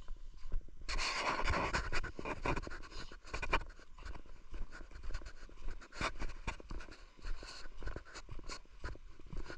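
Wind buffeting the microphone of a walking action camera, giving an uneven rumble with irregular crackles and soft knocks. A stronger hiss swells in about a second in and eases off a few seconds later.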